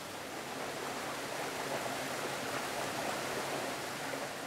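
Brook water rushing steadily through a water-driven marble ball mill.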